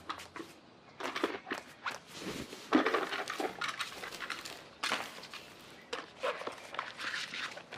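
A string of irregular rustles, scrapes and soft knocks, loudest a little under three seconds in.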